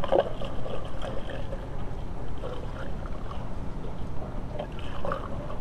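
Liquid pouring from a jug into a funnel in a car's cooling system, with soft, irregular gurgles as it drains through, over a steady low background rumble.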